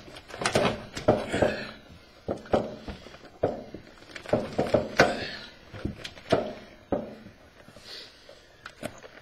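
Flexible fuel cell bladder being folded and forced by hand down into the opening of a welded metal fuel cell can: irregular rustling and crumpling of the bladder with dull knocks against the can, dying down after about seven seconds.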